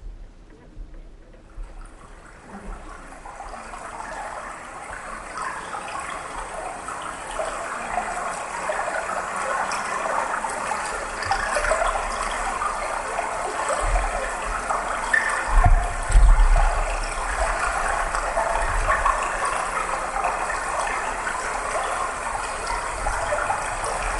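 A steady rushing noise like running water from the performance's soundtrack, fading in over the first several seconds, with a few low thuds about two-thirds of the way through.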